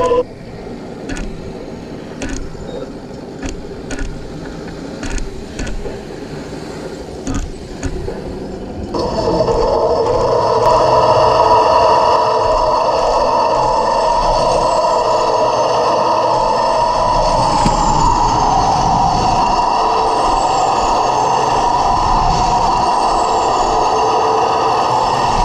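Heng Long T-90 1/16 RC tank: a few light clicks, then about nine seconds in its loud, steady mechanical running sound starts, with a held whine, and carries on as the tank drives.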